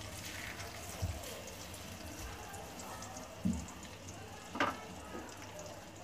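Whole potatoes frying in oil in a steel kadhai: a faint steady sizzle with light crackling. A few soft knocks about a second in, at three and a half seconds and at four and a half seconds.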